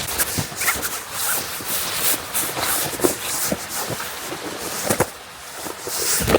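Footsteps crunching in fresh powder snow under shoes fitted with chain spikes, an uneven walking rhythm of short crunches and clicks.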